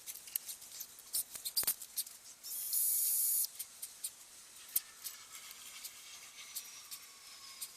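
Small clicks and scrapes of hand tool work enlarging a drilled hole in a small part. A short, loud hiss comes about three seconds in, and a faint falling whine follows in the later half.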